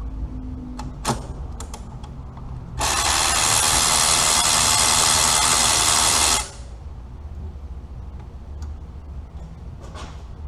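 A power tool runs steadily for about three and a half seconds, starting about three seconds in, likely driving a bolt while the engine accessories are being removed. A few sharp metallic clicks come before and after it.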